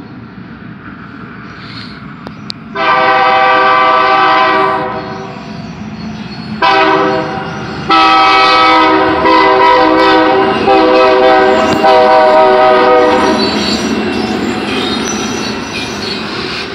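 Diesel locomotive air horn sounding the grade-crossing signal: a long blast, a short one and a long held one, one chord of several notes. Underneath is the steady rumble of the engine and the train rolling past, which carries on alone after the horn stops near the end.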